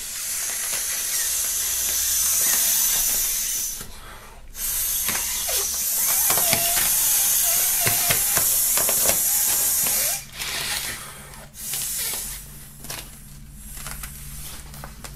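Air blown by mouth into the valve of a small plastic inflatable middle finger, the breath hissing through the valve. There are two long blows of about four and five seconds, then shorter puffs. The valve makes the inflatable hard to fill.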